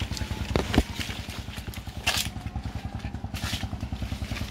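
A small engine running steadily with a rapid, even putter, with a few brief rustles and clatters on top: about a second in, at two seconds and at three and a half seconds.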